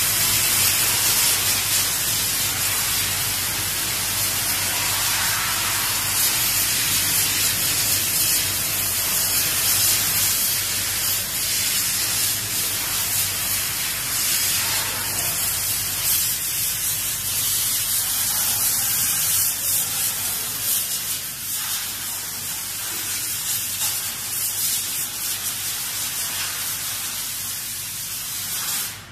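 Powder loading conveyor and conical mixer running: a loud, steady hissing rush of air and machinery over a low hum, cutting off suddenly near the end.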